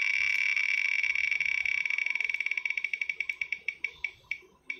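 Online spin-the-wheel picker's tick sound from a computer's speakers: ticks so fast they blur into a steady buzz, then slowing into separate ticks, further and further apart, and stopping near the end as the wheel comes to rest.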